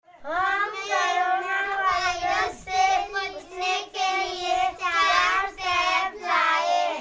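A child singing, in phrases of long held, slightly wavering notes.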